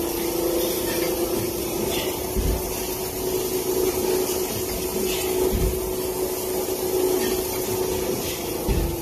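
PP plastic cup thermoforming production line running: a steady machine hum and hiss, with a low thump repeating about every three seconds.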